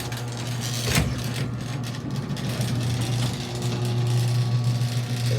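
Electric garage door opener running, its motor humming steadily as it drives the door, with a single knock about a second in.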